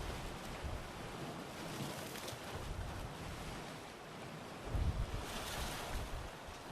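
Sea waves washing against a rocky shore with strong wind buffeting the microphone; a low gust rumbles in about five seconds in, with a brighter wave wash just after.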